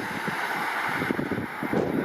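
Wind buffeting the microphone over the fading rumble of a passing diesel passenger train.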